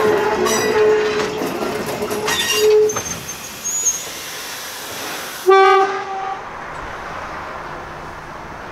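Yakima Valley Transportation's 1922 steeple-cab electric locomotive No. 298 rolling past close by, with rail clatter and a sustained pitched squeal for about the first three seconds. About five and a half seconds in a short, loud pitched note sounds. The sound then falls to a quieter, steady background.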